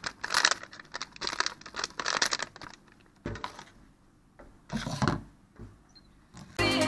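Foil packet of coconut-milk powder crinkling as it is shaken and tipped over a bowl, a quick run of crackles and rustles. Then it goes quieter, with a couple of soft knocks about three and five seconds in as the packet is put down in a stainless steel sink. Music starts right at the end.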